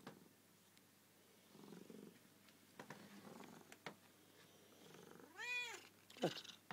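Oriental cat purring faintly in spells, then giving one meow about five and a half seconds in that rises and falls in pitch, with a short falling call near the end.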